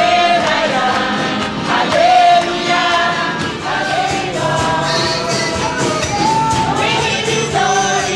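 Congregation singing a gospel song together with a steady beat of percussion, possibly tambourine, under the voices.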